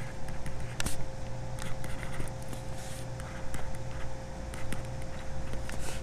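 Pen stylus tapping and scratching on a drawing tablet as handwriting is done, a string of small irregular clicks over a steady low hum and a faint steady tone.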